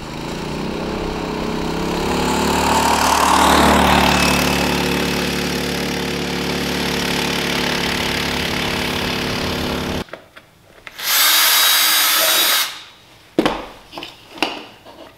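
A Predator 212cc single-cylinder go-kart engine running under way, getting louder for the first few seconds and then holding steady. It cuts off sharply; about a second later comes a loud hiss lasting about a second and a half, followed by a few knocks.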